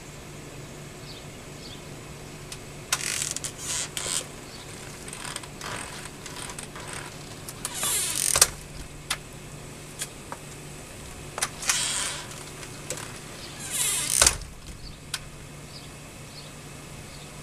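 Hobby robot being handled and set down on a concrete walk: short bursts of mechanical clattering and scraping, with a thud about eight seconds in and another about fourteen seconds in, over a steady low hum.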